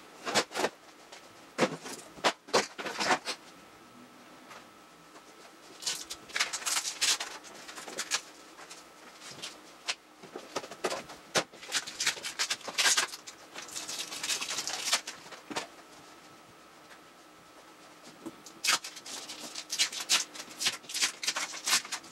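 Paper rustling with sharp clicks and taps as small photos and cards are pulled off a wall by hand, coming in bursts of a second or a few seconds with quiet pauses between.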